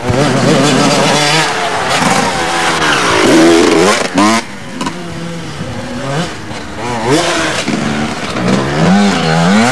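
Motocross dirt bike engines revving hard, the pitch climbing and dropping over and over as the riders accelerate and ease off on the dirt trail.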